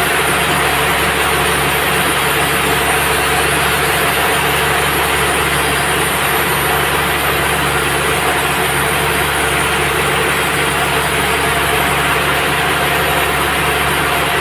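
Band sawmill running steadily: a loud, even machine drone with a constant hum.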